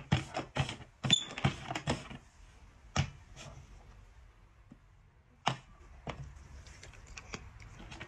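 Small cups knocked and slid across a tabletop while being shuffled for a shell game: a quick run of clicks and knocks in the first two seconds, then single knocks as they are set down, and lighter ticks near the end.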